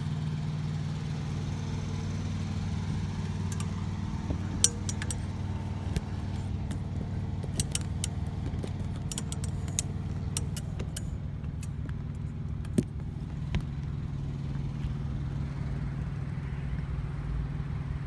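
Irregular metallic clicks and knocks of someone climbing a travel trailer's roof ladder, most of them between about four and thirteen seconds in. A steady low engine-like hum runs underneath.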